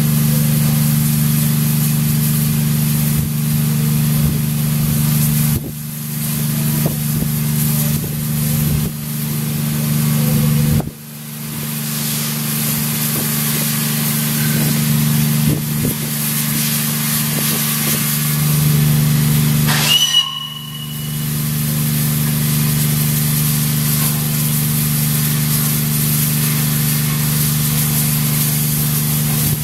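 Peppercorn A1 Pacific steam locomotive 60163 Tornado standing at the platform with steam hissing steadily over a low hum. The hiss cuts out briefly a few times, and a short, high whistle sounds about two-thirds of the way through.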